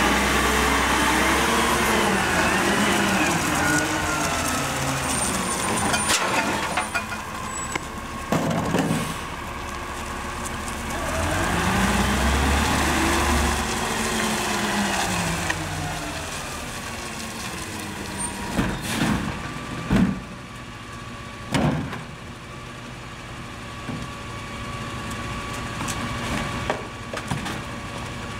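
Diesel engine of a CCC cab-over rear-loader garbage truck revving up and down twice as it pulls away and around, with a few sudden short sharp sounds, then running more quietly as the truck stands.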